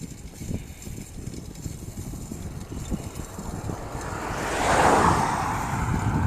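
A motor vehicle driving past, its engine and tyre noise swelling to a peak about five seconds in, with wind rumbling on the microphone throughout.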